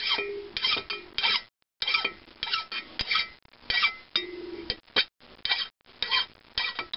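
Hand file scraping in short strokes, about two a second, with a slight metallic ring, rounding off the protruding ends of bronze valve guide liners in a cast-iron cylinder head.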